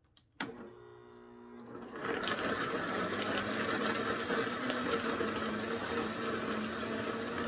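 High-speed countertop blender switched on with a click. Its motor runs quieter for the first second or so, then goes up to a loud, steady full speed, puréeing soaked sun-dried tomatoes into a sauce.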